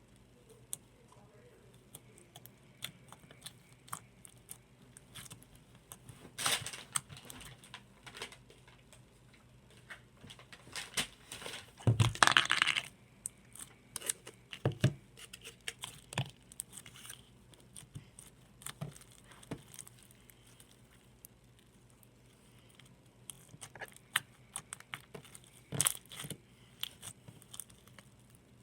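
Slime being handled: irregular sticky clicks and crackles, with a few louder bursts lasting up to about a second.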